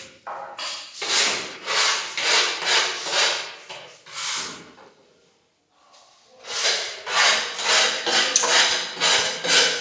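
Rhythmic back-and-forth scraping strokes, about two to three a second, like a surface being hand-sanded or rasped. The scraping stops for about a second and a half near the middle, then starts again.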